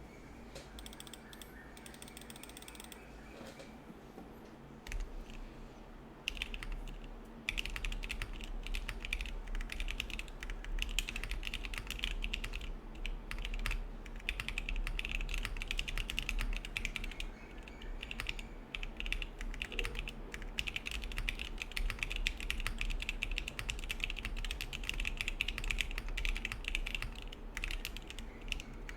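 Typing on a Neo 65 gasket-mount mechanical keyboard with an aluminium plate, no foam and Gazzew Boba U4T tactile switches. After a few scattered clicks, the typing starts about five seconds in and becomes a fast, continuous stream of keystrokes.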